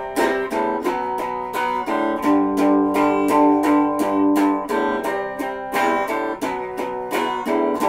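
Acoustic guitar strummed in a steady rhythm, about four strums a second, cycling through a repeating chord pattern.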